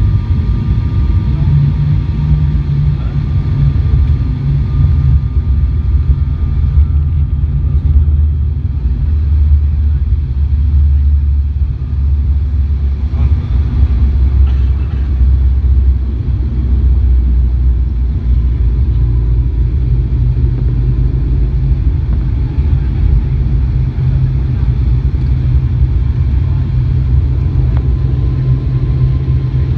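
ATR 72-600 turboprop engines and propellers droning steadily, heard from inside the passenger cabin as the aircraft rolls on the ground: a loud low rumble with a faint steady whine above it.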